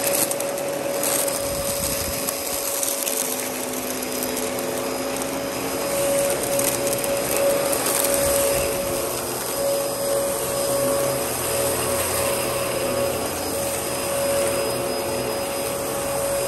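Dyson DC14 upright vacuum cleaner running with a steady motor whine, its loudness swelling and easing slightly.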